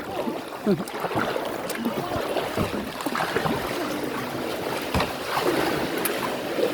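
Clackamas River water rushing steadily around a kayak, with a single knock about five seconds in.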